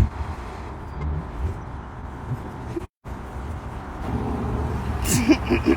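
Low, steady rumble of cars moving through a busy parking lot, cut off briefly about three seconds in. Near the end a rapid pulsing sound starts, about five beats a second.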